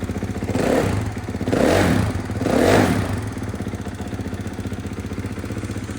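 2017 Kawasaki KX450F's single-cylinder four-stroke engine idling and blipped three times with the throttle, about a second apart, then settling back to a steady idle. It sounds fresh, running well after a rebuild with a new clutch.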